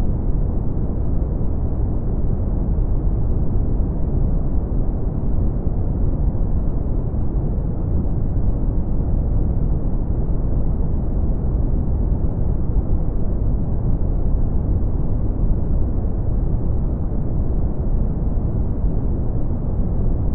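Steady brown noise: an even, deep rushing hiss with most of its weight in the low end and nothing in the high treble.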